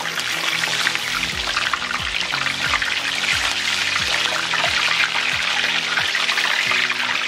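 Battered cod fillets deep-frying in hot vegetable oil: a steady, dense crackle and sizzle. Background music with a steady beat plays under it.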